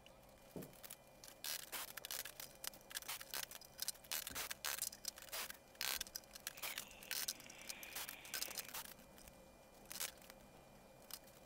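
Plastic quick-grip clamps and the trunk's wooden frame clicking and knocking irregularly as the clamps are adjusted and taken off, with a short scraping noise about seven seconds in.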